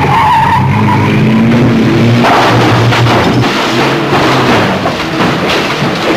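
A car engine revs up, rising in pitch, then gives way to a rushing noise and a string of knocks as the car bounces over stone steps. A film score plays throughout.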